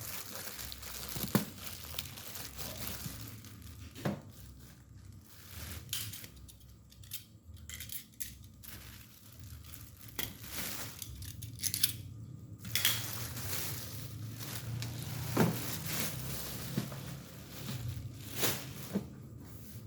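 Packaging being handled: crinkling and tearing of plastic wrap and cardboard, with scattered sharp knocks and clinks as parts are moved.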